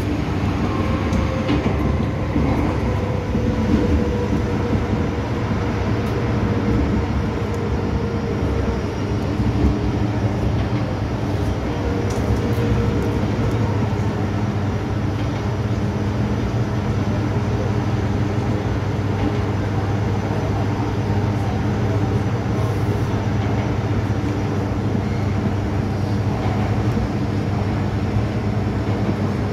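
Inside an MTR M-Train electric multiple-unit car running on the line: a steady rumble of wheels on rail, with a hum of several low, even tones from the traction equipment.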